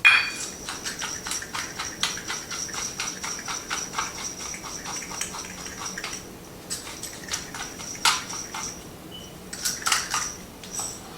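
Pepper grinder grinding fresh pepper: a quick, even run of ticks with a thin steady whine for about six seconds, then a few separate clicks and knocks.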